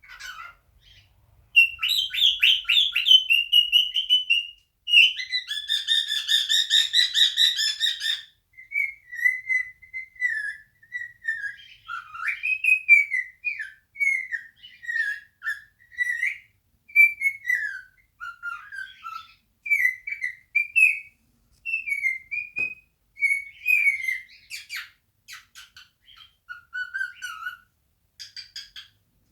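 Male cockatiel singing, a run of whistled notes that slide up and down in pitch, with a harsher, buzzier trill about five to eight seconds in.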